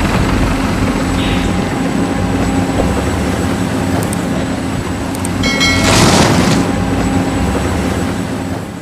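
Remote-control toy excavator working, a steady motor drone with a whirring, engine-like hum. About six seconds in a louder rush of noise lasts for about a second.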